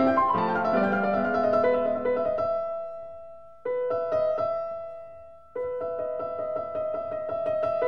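Background piano music. The notes die away twice and the music restarts abruptly each time.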